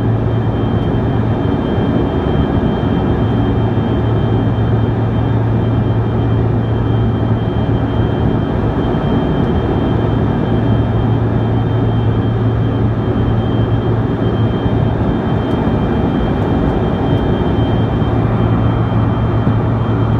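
Steady engine and air noise inside the cabin of a Bombardier CRJ-200 airliner, its two rear-mounted GE CF34 turbofans under power during climb-out: a constant rush with a deep steady hum and a few thin high whining tones above it.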